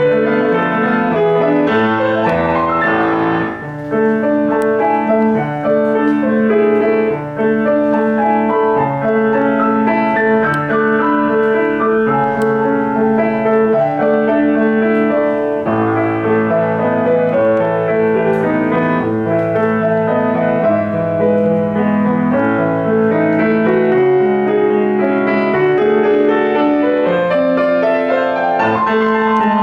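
Piano played live: a fast, full-textured piece of sustained chords and moving lines with a steady loudness, and brief lifts between phrases a few seconds in.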